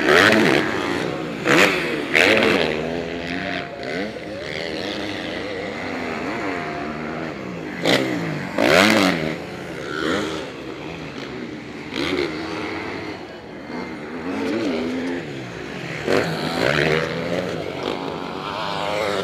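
Several motocross bikes racing, their engines revving up and down through the gears in repeated rising and falling sweeps. The revving is loudest about two seconds in and again about eight to nine seconds in.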